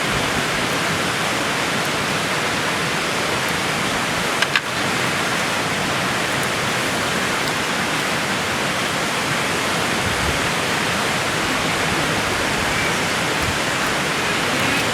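River water rushing steadily over rocks, with one short click about four and a half seconds in.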